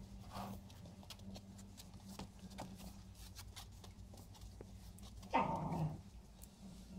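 Puppies scuffling and playing on carpet, with light scratches and taps throughout, and one short, loud puppy bark a little after five seconds in.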